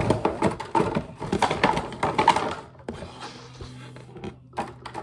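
Cardboard box and packaging rustling and crackling as it is handled and pushed aside, busy for the first two and a half seconds or so, then only a few light knocks.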